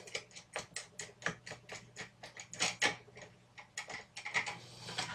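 A run of small, irregular clicks and ticks, several a second, as a fastener holding the amplifier's front panel is unscrewed by hand.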